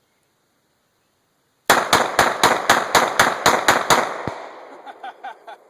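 Pistol fired rapidly, about ten shots in just over two seconds starting nearly two seconds in, followed by a trailing echo as the reports die away.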